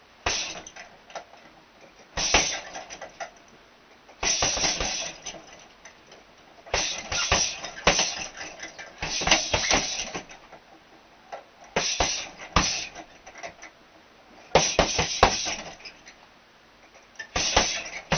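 Boxing gloves striking a hanging teardrop-shaped punch bag in quick combinations of several blows, a burst of punches every two to three seconds with short pauses between.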